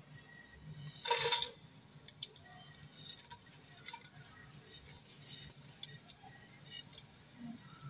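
Whole spices and fennel seeds frying in hot oil in a cooking pot: a brief louder sizzle about a second in as they go in, then faint scattered crackling and popping.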